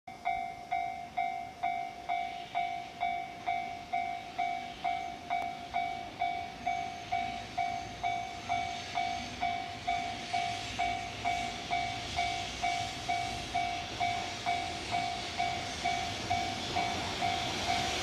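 Japanese level-crossing warning bell ringing steadily at about two strikes a second, while an approaching EH200 electric locomotive and its container freight train grow louder from about halfway through.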